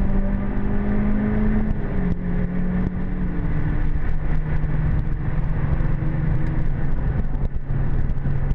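Renault Clio 197's 2.0-litre four-cylinder engine running under way, heard from inside the cabin over steady road and tyre noise. The engine note drops a step about two seconds in, then holds steady.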